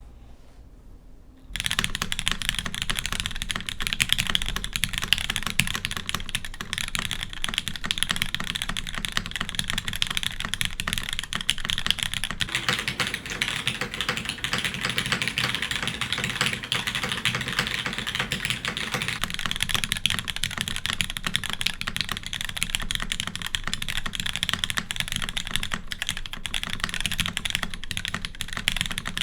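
Custom mechanical keyboard (DN Senna Ayrton case, aluminum plate, lubed Cherry MX Black linear switches, GMK keycaps) being typed on in a fast, continuous stream of key clacks, starting about a second and a half in.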